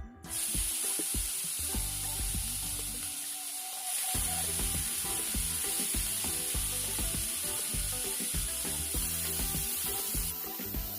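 Marinated chicken pieces frying in hot oil in a frying pan, a steady sizzle.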